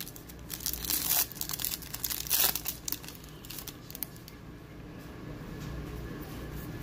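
Wrapper of a 2021 Bowman baseball hobby pack crinkling as it is torn open, loudest in two bursts about one and two and a half seconds in, then quieting after about three seconds.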